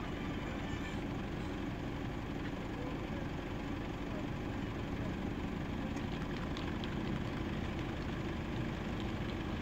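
A vehicle engine idling steadily: an even, low hum.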